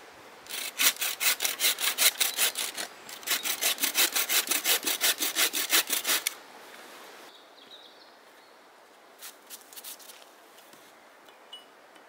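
Wooden frame saw cutting through a birch blank in quick, even back-and-forth strokes, with a brief pause about three seconds in. The sawing stops about halfway through, leaving a few faint clicks.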